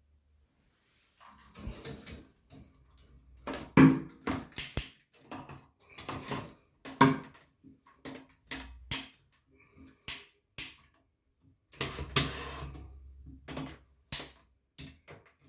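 Irregular knocks, clicks and short scrapes of hard parts being handled, typical of hands and tools working on shower fittings.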